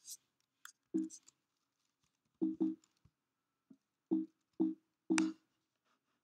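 Computer keyboard keystrokes: about half a dozen separate key presses at irregular intervals, each a sharp tap with a brief low ring, mixed with a few lighter clicks.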